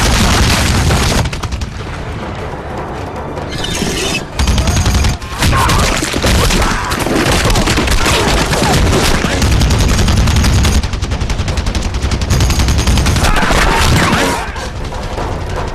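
Heavy .50-calibre machine gun firing long, rapid bursts, with explosions. It eases off for about three seconds near the start, then keeps firing until shortly before the end.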